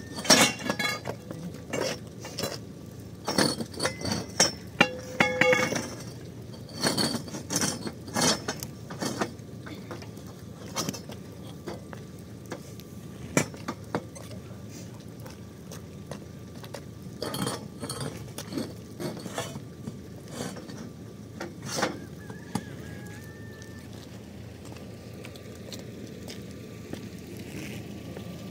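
Metal tent-frame tubes clinking and clanking against each other and the concrete as they are fitted together and laid out. The knocks come in quick clusters, some ringing briefly, through the first several seconds and again in a second bunch later on.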